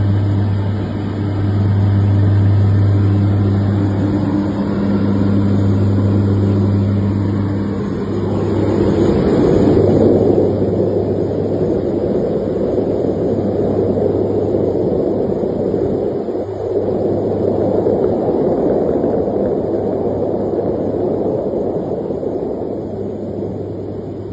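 Aircraft engine and cabin noise heard from inside the aircraft: a steady low hum with a couple of overtones for about the first eight seconds, then a broader rushing drone.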